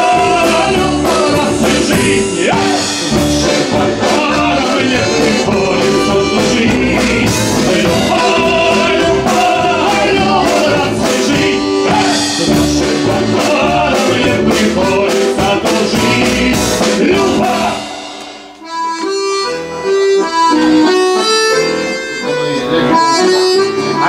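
Accordion-led band music playing an instrumental passage over a steady rhythm. About three quarters of the way through, the full sound drops away briefly, then the accordion picks up again in a lighter, sparser texture.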